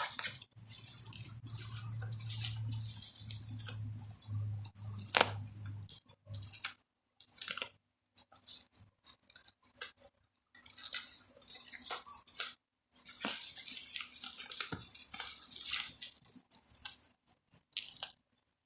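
Plastic packaging wrap crinkling and rustling in irregular bursts as it is cut and pulled open with a knife, with scattered sharp clicks and taps. A low hum runs under it for the first six seconds, then stops.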